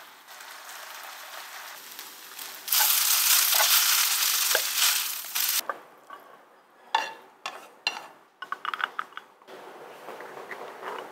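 Mung-bean glass noodles and vegetables sizzling in a hot pan as they are stir-fried with a wooden spatula. The sizzle swells loud from about three seconds in, then fades, and is followed by a few light clicks and knocks.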